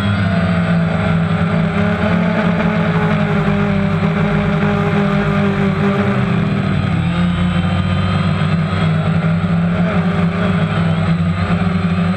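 Drone's electric motors and propellers buzzing loudly and steadily, recorded by a camera mounted on the drone. Several whining tones drift up and down in pitch as the motor speeds change, with a shift about six to seven seconds in.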